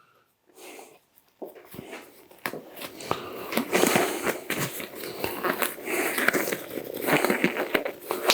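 Knife dicing an onion on a cutting board: a dense, irregular run of crunchy cuts and taps that starts about a second and a half in.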